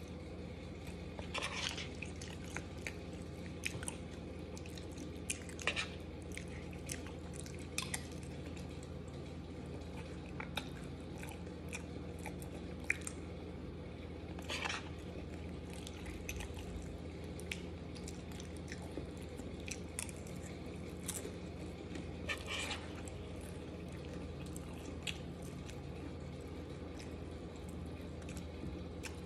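Close-up mouth sounds of a person eating creamy chicken Alfredo pasta off a spoon: wet chewing with many small smacks and clicks, and about four short louder mouth noises spread through. A steady low hum runs underneath.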